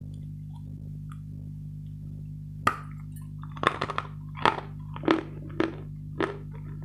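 Dry, dense, grainy chalk bitten off sharply about two and a half seconds in, then crunched between the teeth about every half second. A steady low hum runs underneath.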